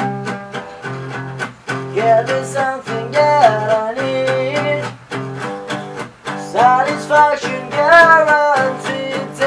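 Acoustic guitar strummed in a steady rhythm, with a voice singing a melody over it from about two seconds in.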